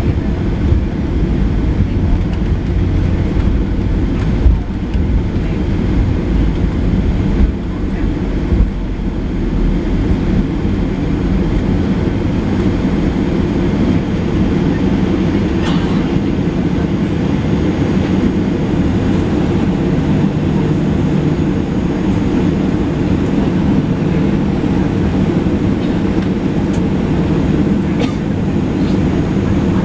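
Cabin noise inside a Boeing 737-700 while taxiing, its CFM56 engines at low taxi power giving a steady low drone. A few thumps in the first nine seconds.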